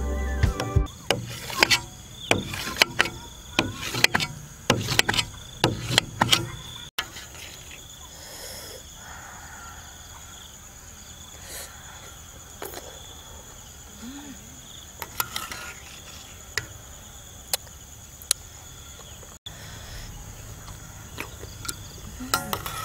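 A metal knife and spoon clink and tap against a stainless steel tray while cutting set jelly, a quick run of sharp clicks over the first six seconds or so, then only occasional clicks. Insects chirp steadily throughout.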